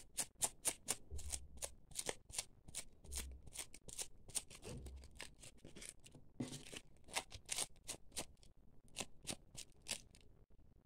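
A strip of hook velcro scraped quickly and repeatedly over crocheted wool yarn, brushing the fibres up into fluffy fur. Short raspy strokes come about four a second and stop near the end.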